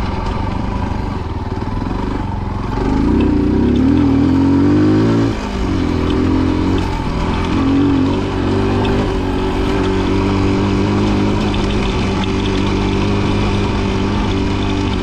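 Rieju Marathon Pro 125 enduro motorcycle's 125 cc engine running: it revs up about three seconds in, drops off sharply just after five seconds, revs briefly again near eight seconds, then settles to a steady note.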